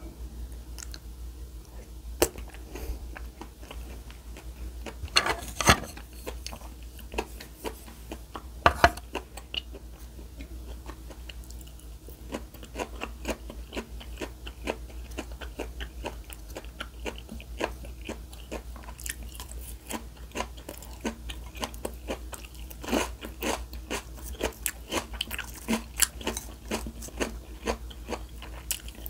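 Crisp, close-up crunching of food: scattered crunches at first, then a quick run of crunches through the second half.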